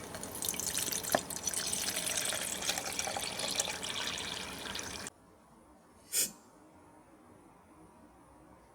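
Water being poured into a pot for about five seconds, stopping suddenly, then a single short knock.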